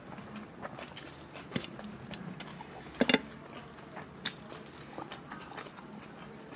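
Eating sounds of rice and curry eaten by hand from steel plates: soft, scattered clicks and taps, with a louder double click about three seconds in.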